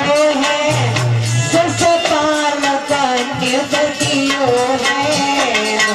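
A woman singing a Hindi devotional song in a wavering, ornamented melody, accompanied by harmonium and a hand drum keeping a steady beat.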